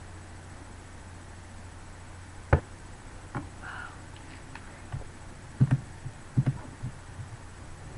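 Quiet room tone with a steady low hum, broken by a handful of sharp knocks and clicks. The loudest knock comes about two and a half seconds in, and a cluster of smaller ones follows in the second half.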